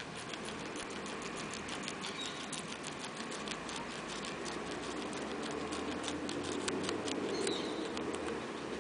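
Guinea pig chewing a long green leaf: a rapid run of small, crisp clicks over a steady background hiss.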